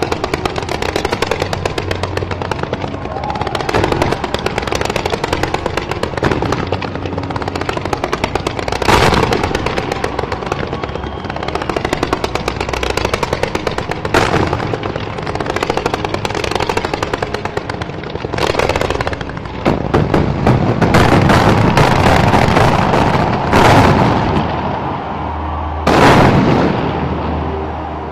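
Aerial fireworks going off in rapid succession: a dense, continuous crackle of small reports, with several louder booms spread through it and the thickest barrage about two-thirds of the way in, thinning out near the end.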